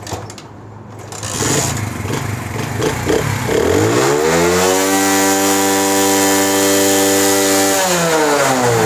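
Road Prince China 70cc single-cylinder four-stroke motorcycle engine running. About three and a half seconds in it is revved up, held steady at high revs for about three seconds, then let back down near the end. It revs cleanly with no misfire, the sign that the new ignition coil gives a strong spark.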